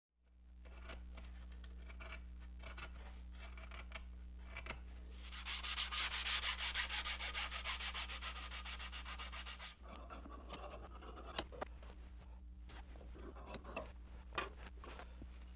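Quick back-and-forth hand strokes abrading the wood of a kayak paddle, about six strokes a second for several seconds, over a steady low hum. After that come quieter handling sounds with one sharp click.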